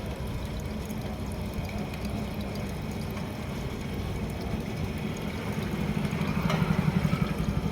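Heavy diesel engine running steadily with a low, even pulse, growing louder about six seconds in as it picks up revs.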